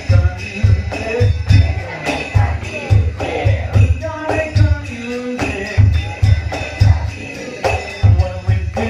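Live band music with a steady beat of deep drum thumps, two to three a second, jingling percussion over it and a melody on top.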